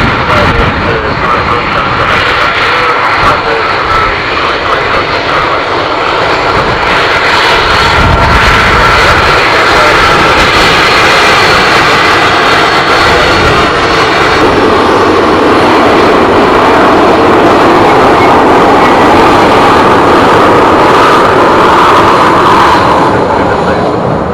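Boeing 737-800's CFM56 jet engines running at taxi power close by, a loud steady rush with a high whine. The sound swells a little about a third of the way in and drops away near the end.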